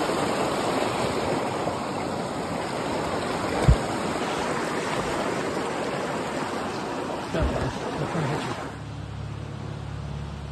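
Rushing water of a rain-swollen creek, a steady whitewater roar, with two short low thumps about 4 and 7.5 seconds in. Near the end the rushing cuts off suddenly and gives way to a quieter low steady sound.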